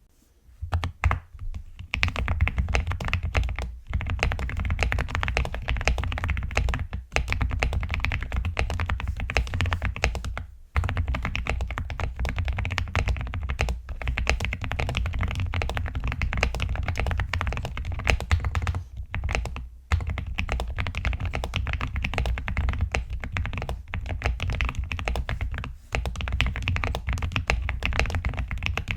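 Fast, continuous typing on an Aula F75 Max mechanical keyboard fitted with Akko Lavender Purple V3 switches, in a dense stream of key clacks broken by a few brief pauses.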